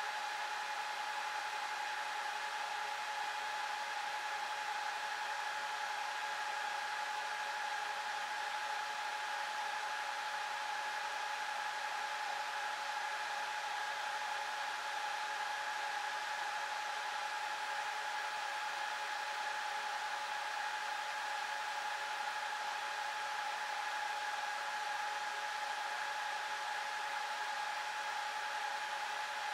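Cooling fans of a Dell PowerEdge 2650 rack server running steadily as the server boots: a rush of air with a steady high whine on top.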